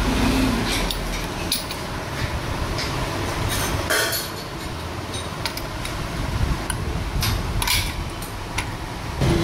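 Steel gearbox parts clicking and clinking against each other and the aluminium crankcase as they are fitted by hand, a scattered series of sharp metallic ticks over a steady background hiss.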